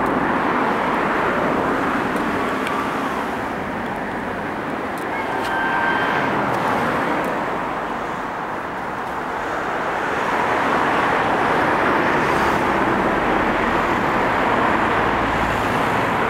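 Steady rushing vehicle noise that eases and swells twice, growing louder from about ten seconds in. A few faint, short whistle-like tones come through around five to six seconds in.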